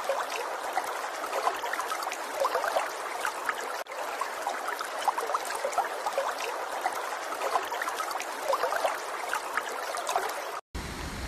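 Floodwater rushing and churning in a swollen river, a steady wash of water noise with many small splashes through it. It cuts off suddenly near the end.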